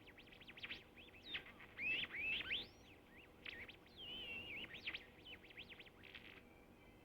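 Home-built one-tube, one-transistor regenerative radio being tuned. Its speaker gives many quick rising and falling whistles and squeals, the heterodyne whistles of the dial sweeping past stations.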